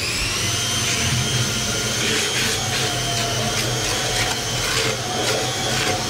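A high-speed electric motor spins up and runs at a steady high whine, with scattered light clicks over it.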